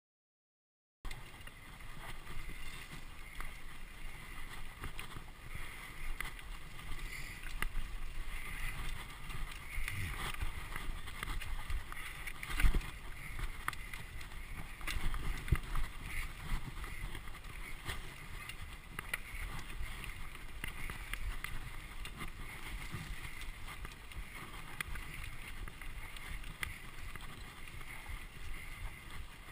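Mountain bike ridden over dirt singletrack: continuous tyre and trail noise with the bike rattling and clicking over bumps, and some wind on the microphone. It starts about a second in, and a sharp knock from a bump about twelve seconds in is the loudest moment.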